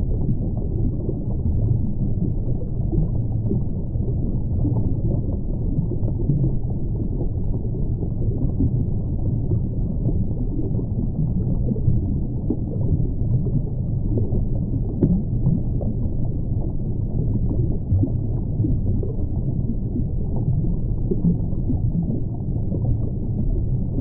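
Underwater ambience: a steady, low, muffled rumble of moving water.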